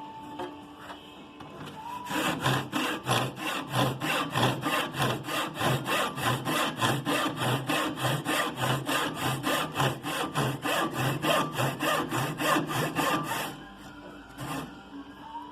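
Hand saw cutting through wood in quick, even back-and-forth strokes, making the shoulder cut of a half-lap joint. The sawing starts about two seconds in, runs steadily for about eleven seconds and stops, with one more stroke near the end.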